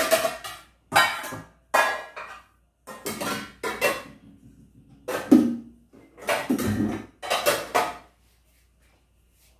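Metal cooking pans clattering and knocking against each other as they are handled and put away, a string of irregular clanks. One pan rings briefly about five seconds in.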